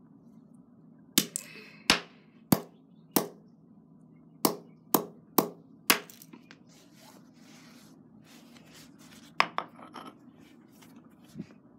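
Hammer blows smashing wired earbuds on concrete: eight sharp strikes in quick succession, then a pause and three more strikes in a fast burst a few seconds later.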